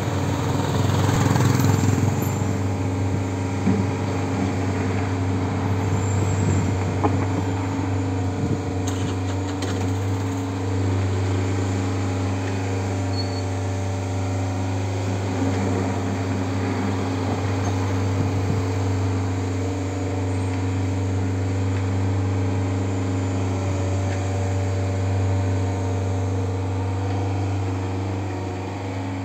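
Bobcat skid-steer loader's diesel engine running at a steady, even pitch while the loader moves about. There is a louder rush of noise in the first couple of seconds.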